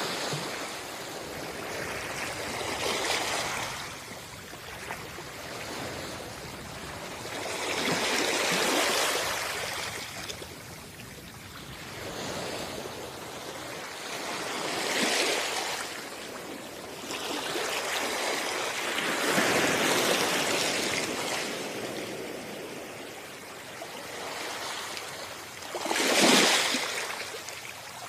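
Sea waves washing onto a beach: the surf swells and falls back five times, about every five to six seconds, with the sharpest and loudest wave breaking near the end.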